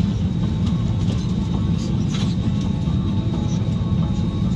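Steady low rumble of airliner cabin noise heard from inside the cabin, with a faint steady high tone.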